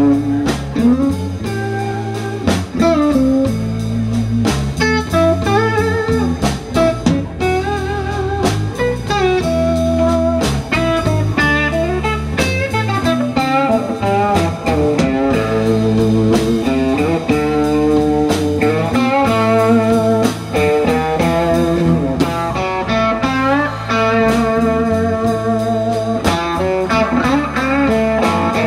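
Blues band playing an instrumental passage: lead guitar with bending notes over bass and drums.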